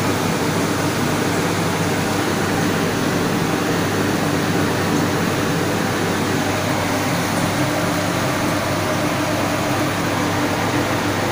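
Steady rushing noise of a gas stove burner turned down to a low flame under a wok of simmering sauce.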